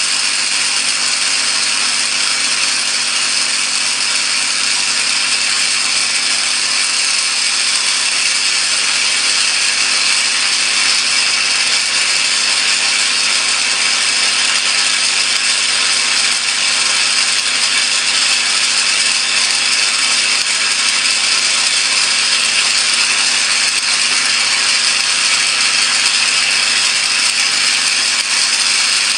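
Electric discharge burning continuously in salt water, giving a loud, steady crackling hiss with a low hum beneath it.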